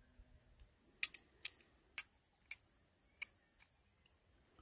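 Sharp metallic clicks, about six over three seconds, from a 1911 pistol's slide and barrel as the parts are handled and fitted together during reassembly.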